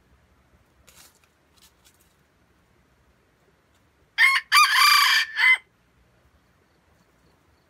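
Red junglefowl rooster crowing once, about four seconds in: a short, loud crow of about a second and a half that breaks off abruptly.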